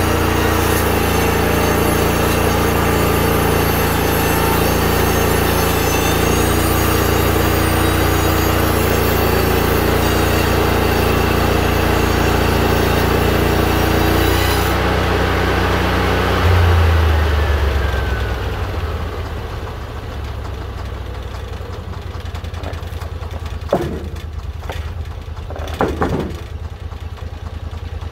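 Rima 36 portable band sawmill running, its engine steady under a dense high hiss as the blade cuts through a white ash log. About halfway the hiss stops as the blade clears the end of the log; the engine surges briefly, then settles lower, as at idle. Two sharp knocks come near the end.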